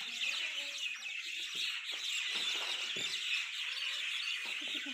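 Dense, continuous chorus of many small birds chirping and twittering at once, with a few faint soft knocks underneath.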